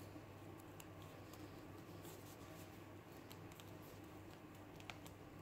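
Near silence: faint room hum with a few faint, short clicks.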